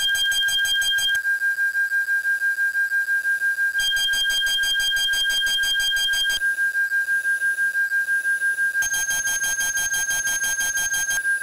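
A steady high electronic tone, alarm-like. Every couple of seconds it switches between a held sound with a second, higher tone over it and a rapid beeping that pulses about six times a second.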